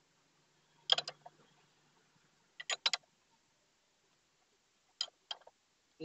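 20 mm ring spanner clicking against the front axle nut as the nut is tightened: three short bursts of clicks, a couple of seconds apart.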